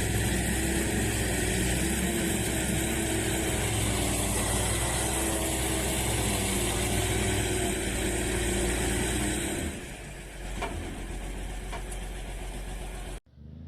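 Heavy diesel engines running hard under load as a tracked skidder tows a loaded logging truck uphill. The sound drops noticeably about ten seconds in and cuts off suddenly near the end.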